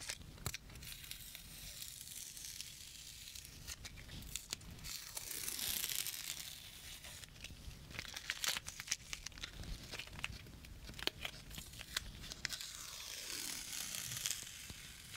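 Faint crackling and tearing of tape being peeled off a paper card, with rustling of the paper and scattered small clicks. It is louder about six seconds in and again near the end.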